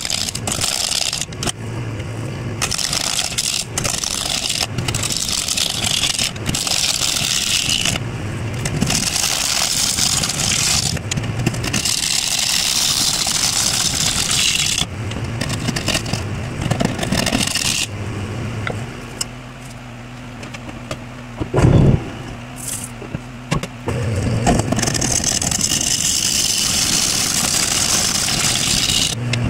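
Gouge cutting a spinning spalted gumbo limbo bowl blank on a wood lathe: shavings tear off in repeated passes over the steady hum of the lathe motor. The cutting stops for a few seconds about two-thirds through, leaving the motor hum and one loud knock.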